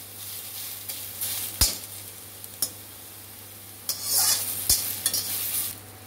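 Metal spatula stirring and scraping grated bottle gourd around an iron kadhai, with a few sharp clicks of the spatula against the pan. Under it is a soft sizzle of the gourd frying in ghee over a low flame. The scraping is loudest about a second and a half in and again from about four to six seconds.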